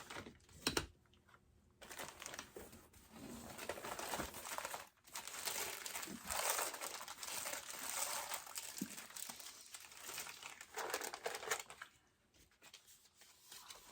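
Crinkling and rustling of whelping bedding as a Yorkshire terrier in labour shifts about on it and is handled. The sound comes in irregular spells, with short lulls about a second in and near the end.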